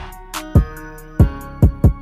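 Instrumental hip hop beat with no vocals: deep bass drum hits that slide down in pitch, hi-hat ticks and a steady melodic line.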